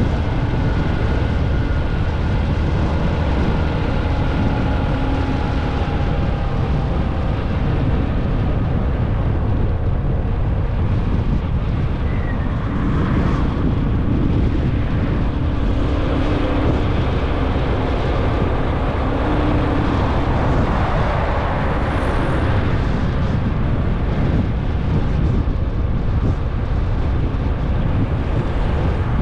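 Motorcycle running under way, with a steady rush of wind over the microphone; the engine's pitch shifts a little as it rides.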